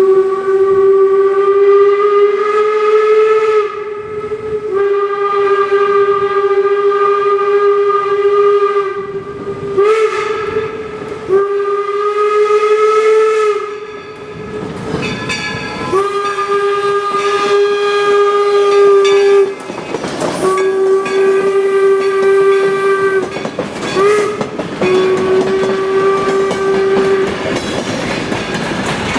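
Steam whistle of the 4-4-0 steam locomotive #17 "York" blowing the grade-crossing signal twice in a row: long, long, short, long, on one steady note. Noisy train sound fills the gaps between the blasts.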